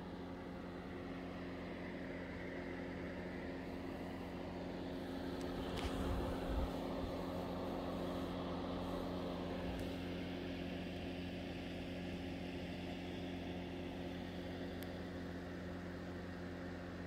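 A steady low hum runs throughout, with a rushing noise that swells to its loudest about six seconds in and then slowly fades.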